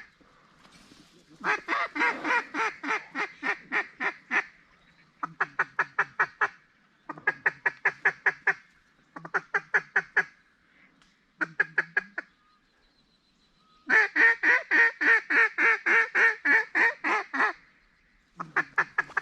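Duck quacking in rapid runs of short, evenly spaced quacks, about six to eight a second. There are seven runs of one to four seconds each, the longest near the end.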